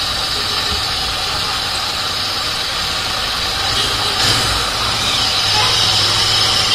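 Royal Enfield Interceptor 650's parallel-twin engine idling steadily, picking up slightly from about four seconds in as the bike starts to move off.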